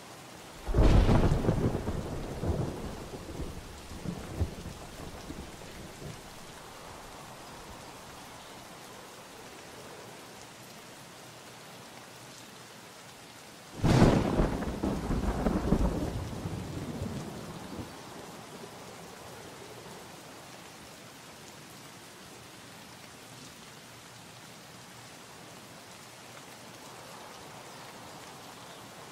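Steady rain with two thunderclaps, about a second in and about fourteen seconds in, each breaking suddenly and rumbling away over several seconds.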